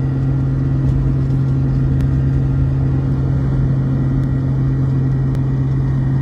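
A vehicle driving at a steady speed, heard from inside the cabin: a constant low engine hum over road rumble.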